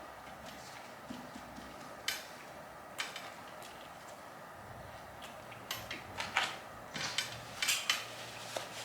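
A person chewing a bacon, egg, and cheese muffin close to the microphone, with scattered sharp mouth clicks, a few at first and a quick run of them in the last few seconds.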